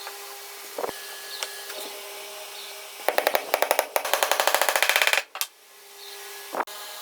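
A fast, even mechanical clatter of sharp clicks, roughly a dozen a second, lasting about two seconds and cutting off suddenly, over a steady workshop hum, with a single knock near the start and another near the end.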